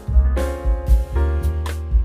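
Background music: a keyboard tune over a steady bass beat.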